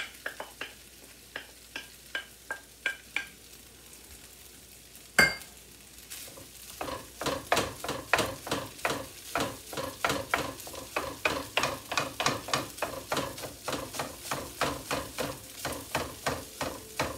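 Wooden spatula stirring and scraping cooked white rice in a nonstick frying pan, a steady run of strokes about three a second, over a faint sizzle as the rice sautés in oil. One sharp knock about five seconds in is the loudest sound.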